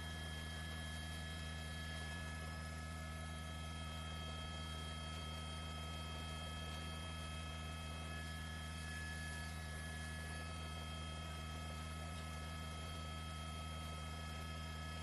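Steady low hum with several constant high-pitched tones over it, unchanging throughout.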